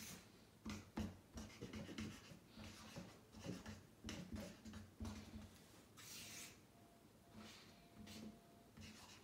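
Faint scratching of handwriting, short irregular strokes with small taps and clicks between them.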